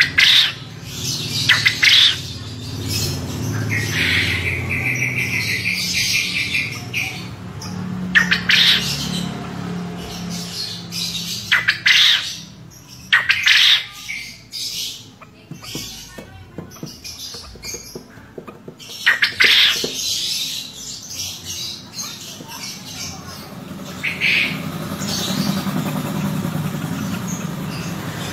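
Male quail calling its chattering contest call (ceketer): loud, sharp calls repeated every few seconds, with a rapid stuttering trill about four seconds in.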